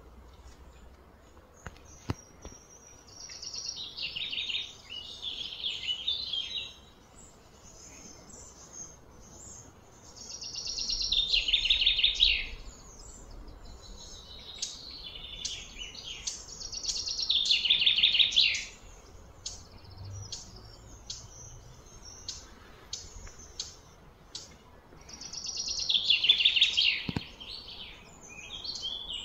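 Birds singing: about four loud phrases of rapid high chirping, each swelling over a couple of seconds before stopping, with scattered short chirps between them.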